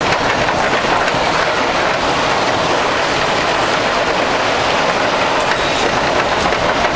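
Electric bumper car running across the ride's metal-striped floor: a steady, loud rolling rumble of the car's wheels and drive, with light clicks.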